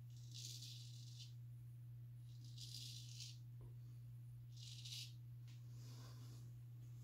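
Razor strokes scraping through lathered stubble: three short scratchy strokes and a fainter fourth near the end, over a steady low electrical hum.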